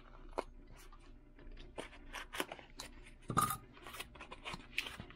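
A small thin cardboard box being handled and opened by hand: scattered crackles, scrapes and clicks of cardboard and paper packaging, with one louder crackle about three and a half seconds in.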